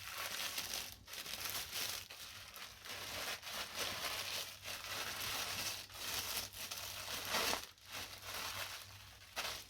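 Plastic bag crinkling in irregular surges as an oiled foam air filter is squeezed and kneaded inside it, working the oil through the foam.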